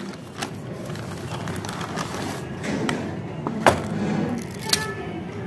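Paper bag rustling and crinkling as a cardboard fried-chicken box is drawn out of it, with a few sharp knocks, the loudest about two-thirds through, as the box is handled and set down on a table.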